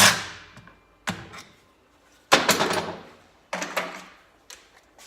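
A series of sharp knocks, about one a second and uneven in strength, from tools being worked on the countershaft sprocket bolt of the motorcycle motor, with the loudest knock about two and a half seconds in.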